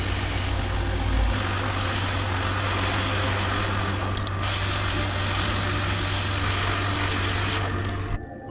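A small electric tool running steadily: an even hiss with a low hum, which shifts slightly partway through and cuts off suddenly near the end.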